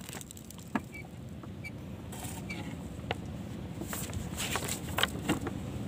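Steady low wind rumble on the microphone, with scattered light clicks and knocks from handling gear in a wooden boat. The knocks come more often in the last two seconds.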